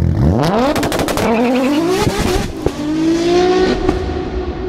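Car engine revving up in several rising sweeps, with a run of sharp cracking pops in the first second, then settling into a held tone that fades near the end. It is the sound of an intro sting.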